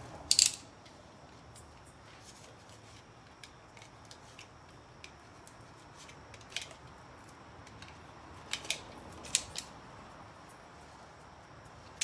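Tyre plug kit's T-handle insertion tool being worked into a car tyre's tread to plug a puncture, making a few sharp clicks and scrapes: a loud pair just after the start, one around the middle, and a small cluster about three-quarters through.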